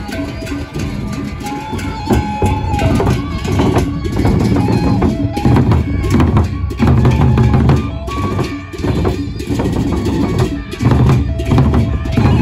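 Gendang beleq ensemble playing: large double-headed barrel drums beaten in a dense, driving rhythm under a higher melody of held notes that step up and down. The drumming gets louder about two seconds in.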